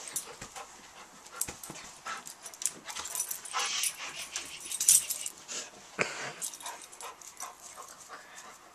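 A golden retriever making dog sounds in short, irregular bursts while being petted, with rustling from hands on its fur.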